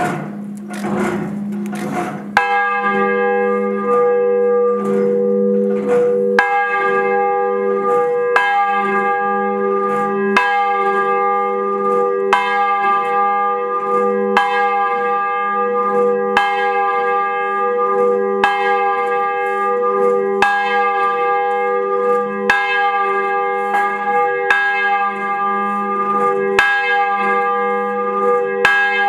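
A large bell hung in a steel frame tolling slowly, one strike about every two seconds, each note ringing on into the next: a memorial toll.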